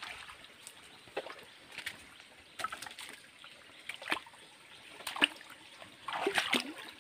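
Shallow stream water trickling and sloshing as someone wades through it, with scattered short knocks and splashes that grow busier near the end.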